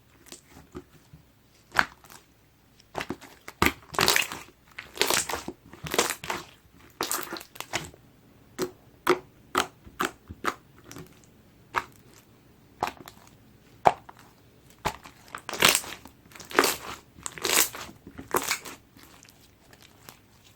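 Clear jiggly slime made from clear glue being worked, giving irregular sticky crackles and wet squelches in short bursts and clusters.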